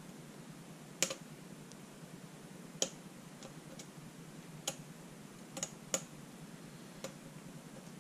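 Lock pick and tension wrench working the pins of a pin-tumbler challenge lock: sharp, irregular metallic clicks, about eight of them, spaced unevenly.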